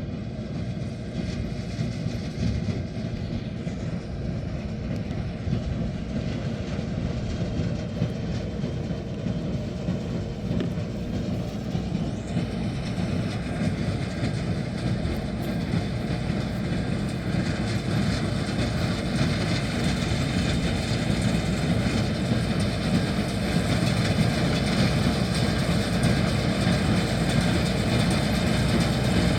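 LS tractor running with a small square hay baler working behind it, a steady mechanical clatter that grows gradually louder.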